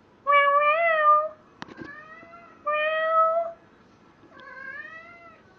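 Male cat yowling three times, each a long drawn-out call of about a second, the last one quieter. These are mating yowls, made while he mounts a stuffed toy.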